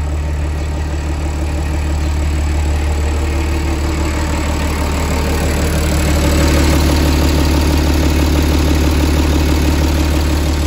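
Isuzu six-cylinder diesel engine of a TCM SD25Z6 wheel loader idling steadily, heard up close at the open engine bay, getting a little louder about halfway through.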